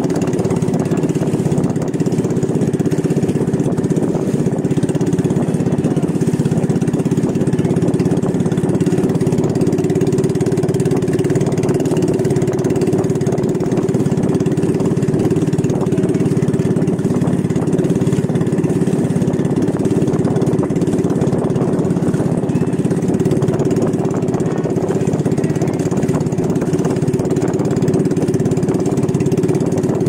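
Engine of a motorized outrigger boat running steadily under way: one loud, unchanging drone.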